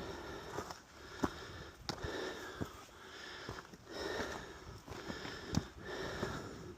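A person breathing hard and rhythmically close to the microphone, a breath about every second and a half to two seconds, with a few sharp clicks in between.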